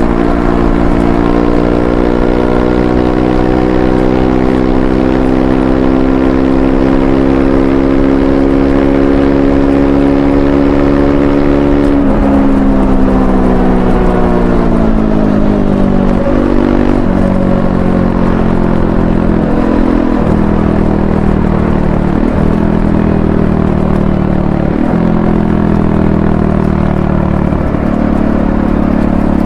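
Triumph Scrambler 400X's single-cylinder engine running on the road, its revs climbing slowly for about twelve seconds, then dropping away. Through the second half the note breaks off and shifts several times before settling to a steady pitch near the end.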